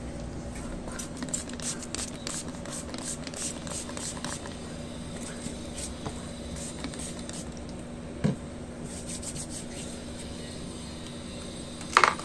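Close handling noise from hands on a plastic bottle and a cardboard box: clusters of short scratchy ticks and rustles, a soft thump about eight seconds in and a louder clack near the end, over a faint steady hum.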